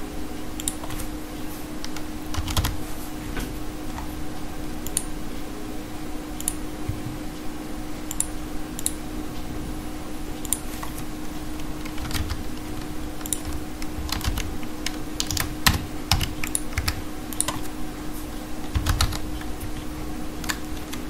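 Computer keyboard typing in irregular, scattered keystrokes and clicks as values are entered into a program's form fields, over a steady low hum.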